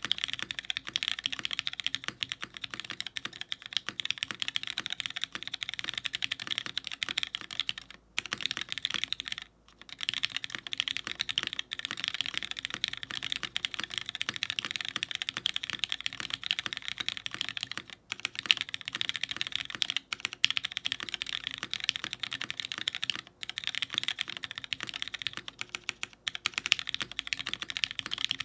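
Fast, continuous typing on a top-mounted mechanical keyboard with lubed Cherry MX Black linear switches in an aluminium full plate, under GMK keycaps: a dense run of keystroke clacks, with brief pauses about eight, nine and a half and eighteen seconds in.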